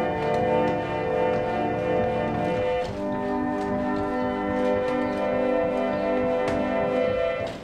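Antique pump (reed) organ played with all its stops pulled out: sustained chords, changing to a new chord about three seconds in and released near the end.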